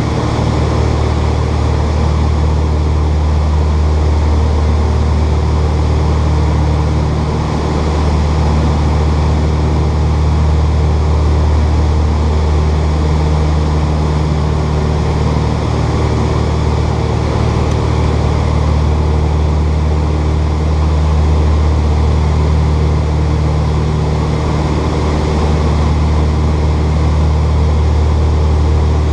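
Piper Aztec's twin piston engines and propellers droning steadily on landing approach, heard inside the cabin: a deep, even engine hum layered with air-rush hiss. The loudness dips slightly about seven seconds in.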